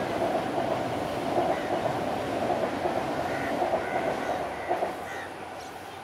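A loud steady rumble that fades away near the end, with a few faint short chirps from a juvenile Eurasian tree sparrow over it.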